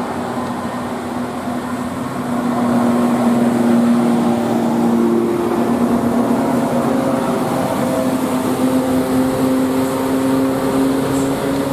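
A bus running close by, its engine giving a few long steady tones that drift slowly upward in pitch over a rushing noise, growing louder about two and a half seconds in.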